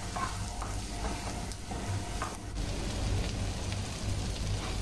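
Chopped onions sizzling as they fry in oil in a pan, with a wooden spatula stirring and scraping through them now and then.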